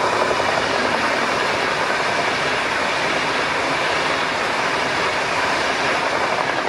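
ED250 Pendolino high-speed electric train running past at speed: a loud, steady rush of wheels on rails.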